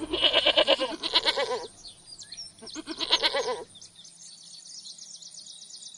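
Goat bleating: a long, wavering bleat, then a shorter bleat about three seconds in. A fainter, rapid high-pitched ticking follows for the last two seconds.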